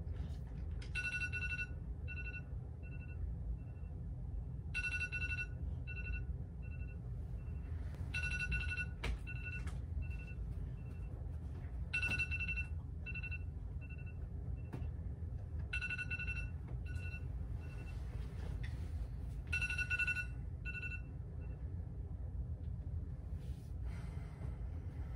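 A phone alarm ringing. Each round is a short chiming burst followed by a few quick beeps, and the round repeats about every four seconds, six times, before stopping a few seconds before the end. A steady low hum runs underneath.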